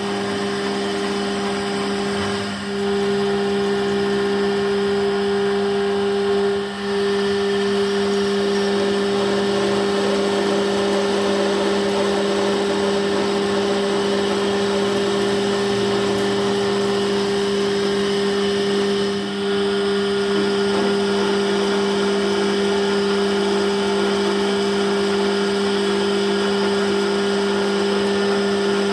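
Metal lathe running steadily while its cutting tool turns the end of a steel shaft, a constant machine hum with a cutting hiss over it. The sound dips briefly three times.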